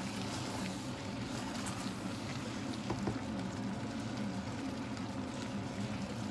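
Wooden spatula stirring thick risotto in a stainless steel pot, with soft scrapes and a few light ticks over a steady low hum.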